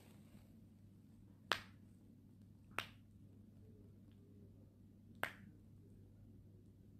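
Three sharp finger snaps, about a second and a half in, near three seconds, and a little after five seconds, each short and crisp.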